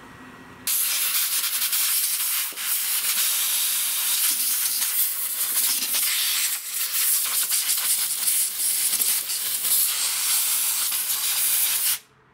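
Compressed-air blow gun hissing as it blows a rodent nest out of a lawnmower engine, around the governor air vane and springs. The jammed air vane was holding the throttle wide open. The blast starts about a second in, runs with small dips and stops just before the end.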